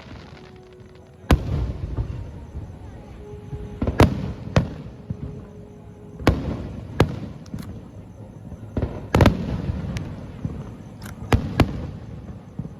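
Aerial firework shells bursting at a distance: about a dozen sharp booms at irregular intervals, each followed by a low rumbling echo.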